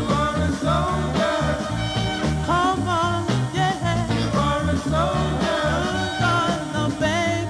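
Soul record playing: a band groove with a bouncing, repeating bass line and a wavering melodic lead line above it.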